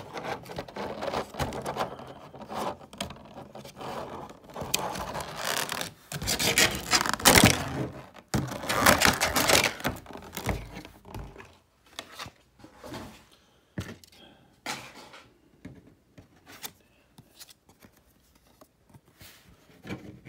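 Stiff clear plastic packaging tray crackling and scraping as it is handled, loudest about halfway through, then sparser light clicks and taps as cards come out of it.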